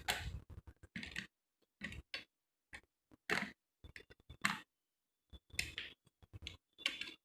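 Wet slate pencils crunching: a series of short, irregular dry crunches, about a dozen, some louder than others.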